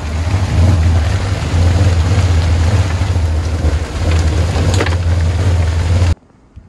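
Rain squall on a sailboat: wind buffeting the microphone with a heavy low rumble over a steady hiss of driving rain, with a few sharp taps. It cuts off suddenly near the end.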